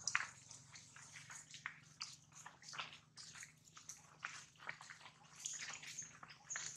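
Faint, irregular crackling and clicking, as of footsteps on dry leaf litter and gravel.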